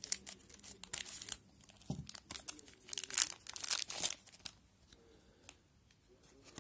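Foil trading-card pack being cut open with scissors, the wrapper crinkling and tearing as it is pulled apart: a run of crackles, loudest about three to four seconds in, then quieter as the cards are handled.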